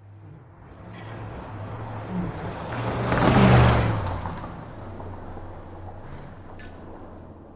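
A car passing by at speed: tyre and engine noise swells to its loudest about three and a half seconds in and then fades away over a steady low hum.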